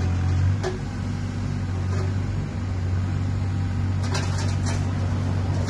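Wacker Neuson EZ28 mini excavator's diesel engine running steadily, its low hum easing a little about half a second in, with a few light knocks from the machine.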